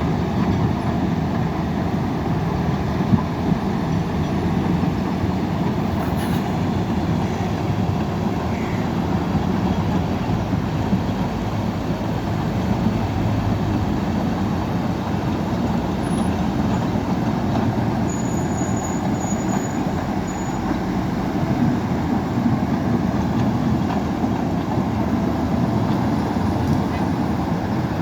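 Heavy earthmoving machinery running steadily: diesel engines working under load, a continuous low rumble with no clear breaks.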